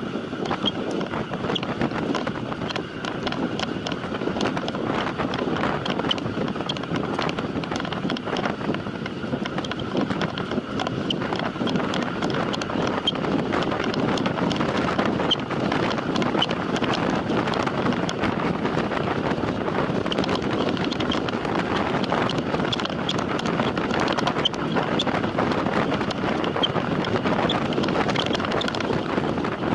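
Steady wind rushing over the microphone of a camera on a time-trial bike ridden at race speed, with scattered small clicks and rattles.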